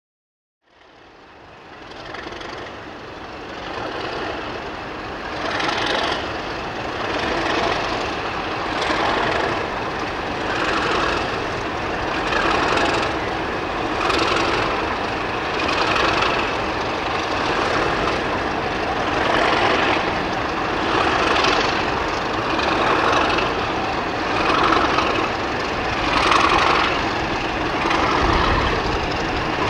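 A diesel locomotive engine running steadily at the station. It fades in over the first couple of seconds, and its note swells and eases every couple of seconds.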